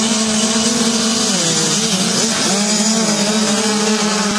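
A pack of motocross bikes revving at a start, engines held at a steady high pitch. In the middle several engines' pitches dip and climb in crossing glides as the bikes take off and shift, then settle back to a steady pitch.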